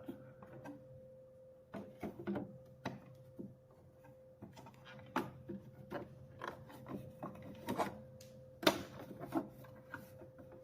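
Irregular clicks, taps and rubbing as the parts of a sewing machine are handled and scrubbed clean, with one louder knock near the end, over a steady faint hum.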